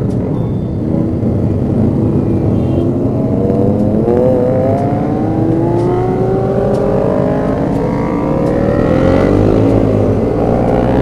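Several motorcycle engines running as a group rides off, with one engine climbing steadily in pitch as it accelerates from about a third of the way in until near the end.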